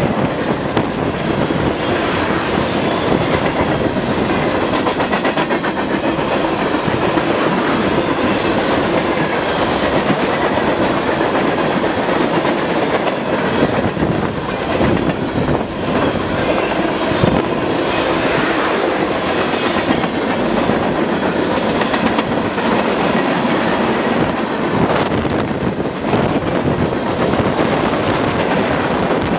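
Freight train cars, covered hoppers, boxcars and tank cars, rolling past close by at speed: a steady loud rumble of steel wheels on rail with a constant run of clicks and clacks as the wheels cross rail joints.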